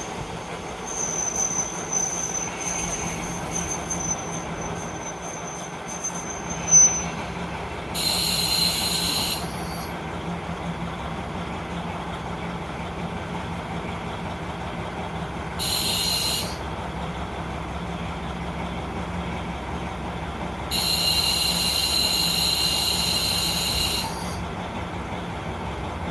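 Running sound of a JR Hokkaido KiHa 40 diesel railcar with its steady engine hum. A high-pitched wheel or brake squeal runs for the first several seconds, and a sharp knock comes about seven seconds in. Three sudden bursts of hissing follow, the last lasting about three seconds.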